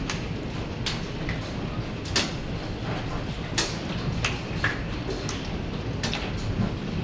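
Hailstorm heard from indoors: a steady roar of falling hail and rain with irregular sharp knocks of individual hailstones striking nearby hard surfaces, the loudest about two and three and a half seconds in.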